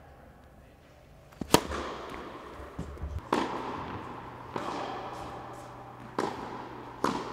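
Tennis balls struck by racket and bouncing on the court: a sharp loud pop about a second and a half in, then four more smacks, each echoing around a large indoor tennis hall.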